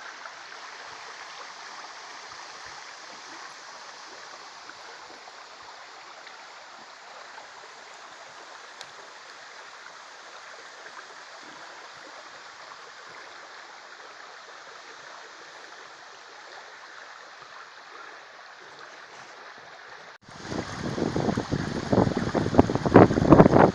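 Shallow river water rippling over a stony riffle, a steady rush. Near the end it cuts abruptly to a much louder, uneven low rumbling on the microphone.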